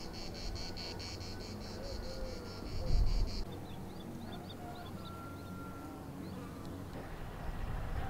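Insects chirping in rapid, even pulses, stopping about three and a half seconds in, followed by a few short high chirps, over a steady low rumble that swells briefly about three seconds in.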